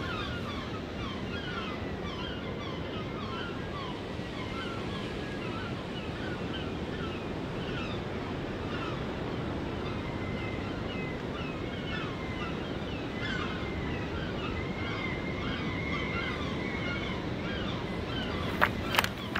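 Steady wash of sea surf and wind on a shingle beach, with birds chirping again and again. Just before the end come a few sharp crunches of footsteps on the pebbles, the loudest sounds here.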